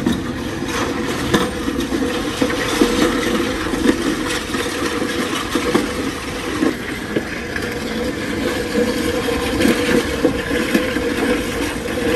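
Loaded Cluster push sled, stacked with bumper plates, scraping and grinding continuously as it is shoved across stone paving, with a few knocks along the way.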